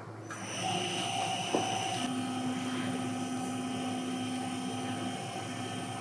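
Tormach 8L CNC lathe running a drill into the end of the bar stock: a steady machine whine with several held tones, setting in just after the start.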